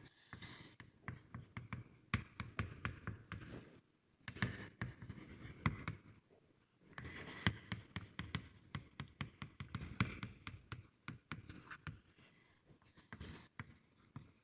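Handwriting on a board during a lecture: groups of short scratching strokes and taps separated by brief pauses.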